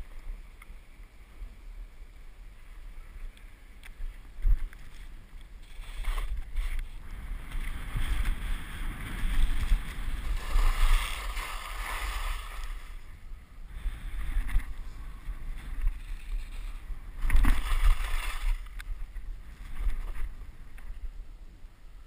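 Skis sliding over snow, a swishing hiss that swells in surges with the turns, over the rumble of wind buffeting the microphone.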